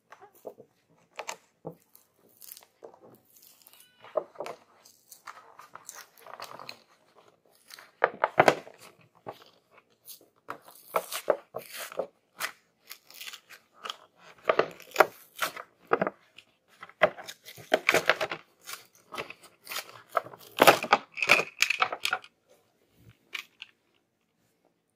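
Clear plastic and card toy packaging being handled, pried open and torn: irregular crackling and rustling with sharper snaps, stopping a couple of seconds before the end.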